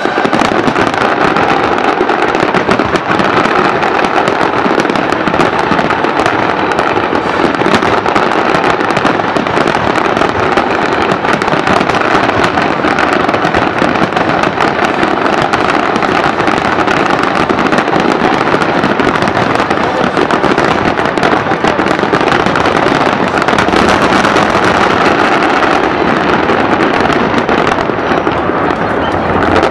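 Fireworks finale: many aerial shells bursting at once in a dense, unbroken crackling and booming barrage.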